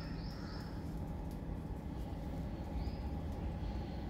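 Steady low outdoor rumble, with a few short, faint high chirps: three quick ones at the start and two more about three seconds in.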